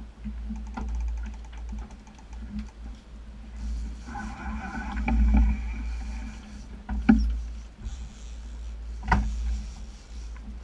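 Twin outboard motors running steadily at trolling speed, a low hum under a heavy rumble, with a couple of sharp knocks in the second half.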